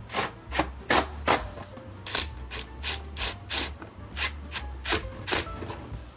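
Ratchet clicking in short runs of three or four strokes as fairing fasteners are tightened, over background music with a steady low bass beat.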